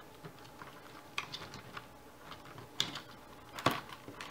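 Scattered light clicks and taps from a small hobby servo and its wire being handled in a 3D-printed plastic wing panel; the two sharpest clicks come a little under three seconds in and shortly before the end.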